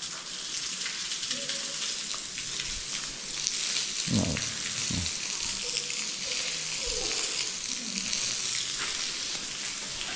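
Steady hiss of water spraying from a hose, with a dog whimpering briefly about four seconds in and whining faintly a couple more times shortly after.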